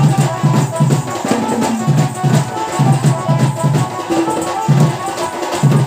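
Live folk dance music: a hand drum beating a fast, even rhythm under a held, high melody line.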